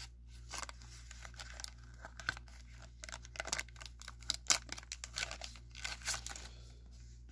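Foil wrapper of a single-card trading card pack being peeled and torn open by hand, crinkling with many small, irregular crackles.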